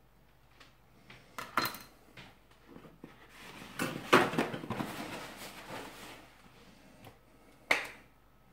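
A kitchen knife set down on a plastic chopping board with a couple of sharp clacks, then a sheet of paper towel pulled and torn off its roll in a long rustle, and a single sharp click near the end.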